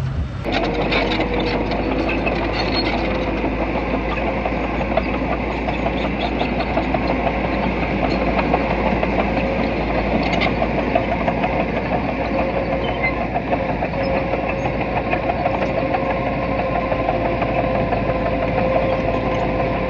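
Diesel engine of a small bulldozer or dump truck running steadily under load, with a steady whine above the engine rumble.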